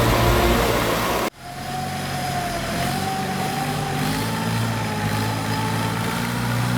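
A loud sound cuts off abruptly about a second in. Then a Kubota rice combine harvester's diesel engine runs steadily, with a thin whine above the drone.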